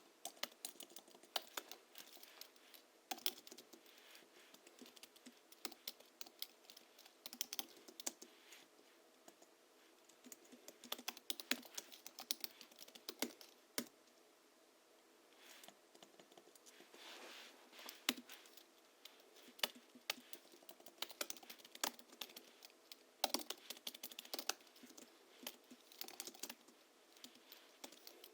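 Typing on a Hansung GHL-5X keyboard tuned for a deep, thocky sound: springs lubed with a Krytox 103/107 blend, 50 g rubber domes, and sound-absorbing foam in the case. Keys are struck in irregular bursts, with a brief pause about halfway through.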